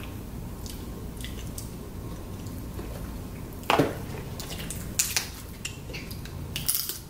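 Crab and tableware being handled while eating: a few sharp clicks and small knocks, with one louder crackling snap about halfway through, over a steady low hum.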